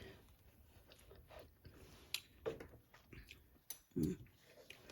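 Quiet mouth sounds of someone tasting sauce: scattered lip smacks and small clicks, with two brief low sounds about two and a half and four seconds in.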